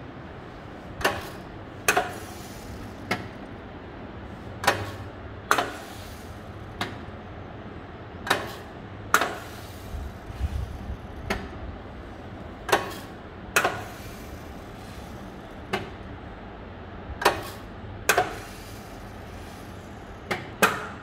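FOSS grain analyser working through a guar seed sample in ten sub-samples: sharp mechanical clicks and clacks, irregularly spaced about once a second, over a steady background hum.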